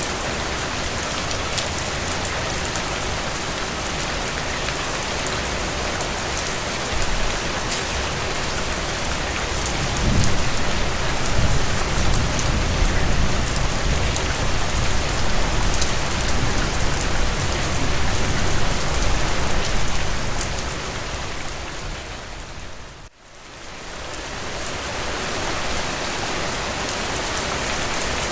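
Strong rain falling steadily, with drops hitting a surface. A low rumble swells about ten seconds in and lasts around ten seconds. The rain dips out briefly near the end, then fades back in.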